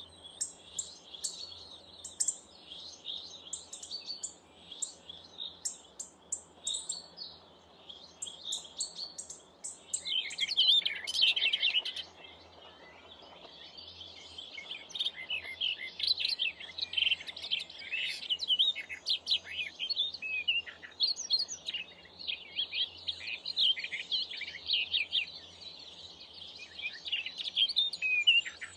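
Small garden birds chirping and twittering in many short, high calls, with a loud dense flurry about a third of the way in and near-continuous twittering through the second half.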